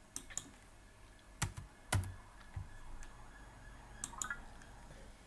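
Computer keyboard keys tapped a handful of times at an uneven pace while a short password is typed, followed by a quick pair of clicks near the end.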